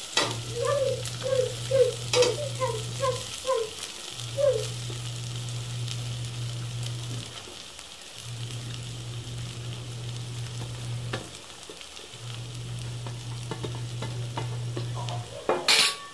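Hot oil and masala sizzling in an aluminium pot on a gas flame as cooked rice is scraped in from a steel plate and worked through it. A run of short, even calls, about three a second, sounds in the first few seconds, and a sharp metal clatter comes near the end.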